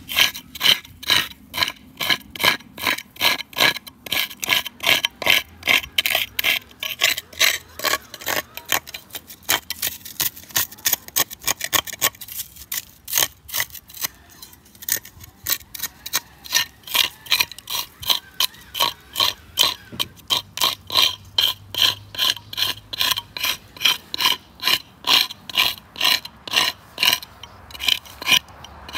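A flat metal scraper rasping against lichen-covered tree bark in quick, regular strokes, about three a second, scraping the lichen off the trunk.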